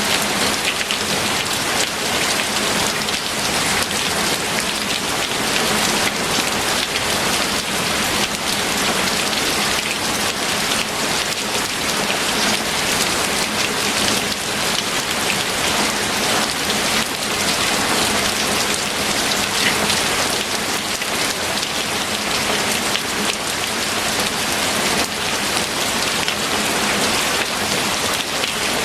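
Steady, heavy rain falling and pattering on a surface, with many fine drop impacts and no change in intensity.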